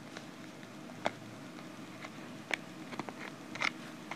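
A handful of light plastic clicks and taps, scattered over a few seconds, as a small USB wireless receiver is pushed and fumbled against the storage slot in the back of a Wacom Intuos tablet without seating.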